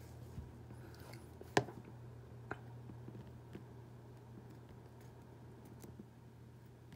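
Faint clicks and crackles from a dry, papery Tecoma stans (yellow bells) seed pod being pried apart along its seam with metal tweezers. One sharp click comes about one and a half seconds in and a lighter one about a second later, over a low steady hum.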